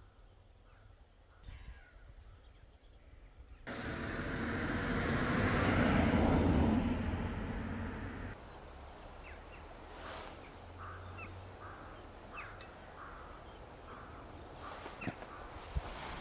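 Outdoor ambience broken by edits: a loud rushing swell of noise rises and fades over about four seconds, then stops suddenly. After that, short faint bird calls come now and then over a quiet background.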